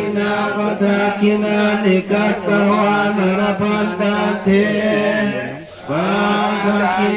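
Buddhist monks chanting Pali verses in a steady, low monotone recitation, with a short break for breath near the end before the chant resumes.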